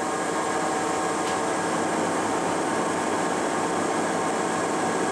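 1969 Lucas 42B-120 horizontal boring mill running with its 48 by 98 inch T-slotted table traversing on power feed: a steady, even mechanical hum with several steady tones.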